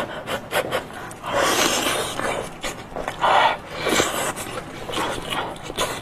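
Close-miked eating sounds: sucking and slurping at a piece of spicy sauced meat, with rasping, breath-like swells and wet mouth clicks.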